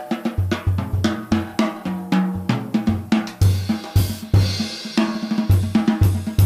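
Jazz drum solo on a drum kit played with sticks: rapid, busy strokes on snare, toms and bass drum mixed with cymbal hits, the low drum pitches shifting from stroke to stroke.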